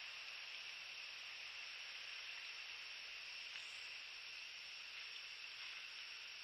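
Steady, faint hiss from the nest camera's microphone, with no distinct sounds standing out.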